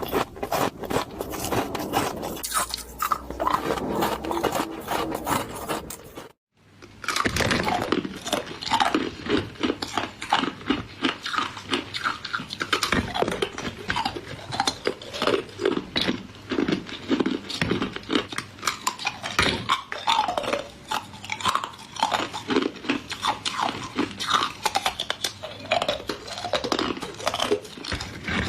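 Ice cubes crunched and chewed close to the microphone: a rapid, dense run of crisp cracks and grinding crunches. It breaks off completely for a moment about six seconds in, then resumes.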